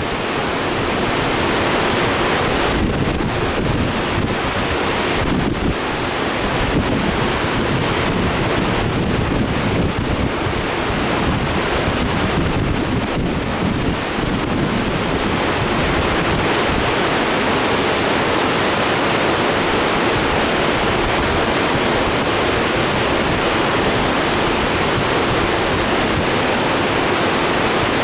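Steady rushing of a creek running fast and turbulent below a low dam, swollen and muddy after rain.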